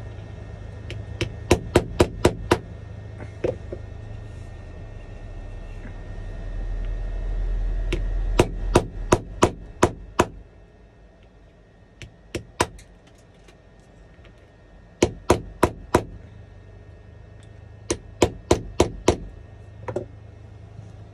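A small hammer tapping the end of a metal pry tool to crack and chip the back glass off an iPhone 11. The taps are sharp and come in quick runs of four to seven, with short pauses between the runs.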